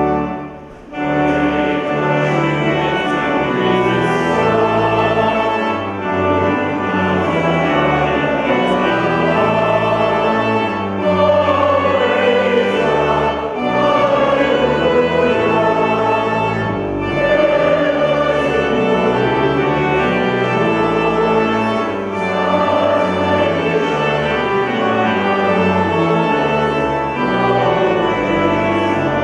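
Choir singing a hymn in parts with organ accompaniment. The music briefly drops away about a second in, then carries on steadily.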